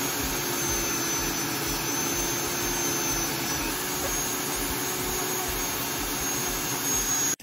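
Dremel rotary tool running at steady speed, its sanding drum grinding a small piece of craft foam into a curved tooth shape: a steady high whine over a loud rushing noise.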